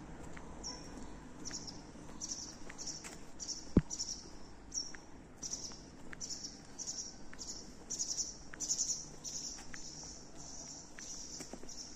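Small birds chirping: a high, buzzy chirp repeated about twice a second, with short thin tweets between. There is one sharp knock about four seconds in.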